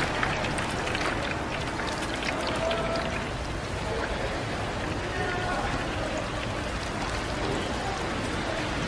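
Hot oil sizzling and crackling steadily as battered green peppers deep-fry.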